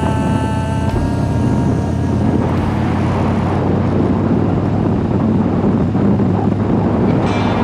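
Harley-Davidson Dyna's V-twin engine running steadily on the move, with wind rush. A held sung note from the song fades out in the first second or so.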